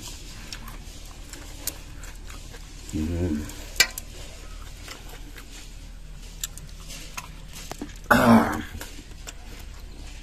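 A person eating curd rice by hand, with faint wet smacks and clicks of eating. A low hum comes about three seconds in, and a short, louder vocal sound about eight seconds in.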